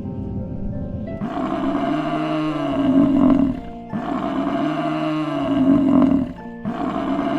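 A large animal roaring: three long, deep roars of about two seconds each, over soft background music.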